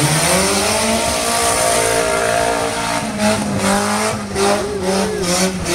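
Pickup truck engine revving hard and held at high revs, dipping briefly and climbing again about three seconds in, as the truck sets off on a dirt tough-truck course.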